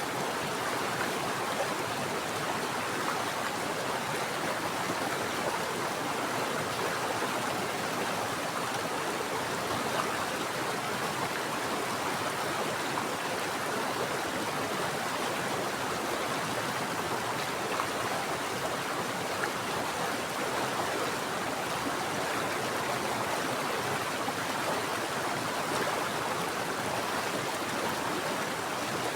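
Mountain water flowing steadily, an even, unbroken rushing with no changes or separate splashes.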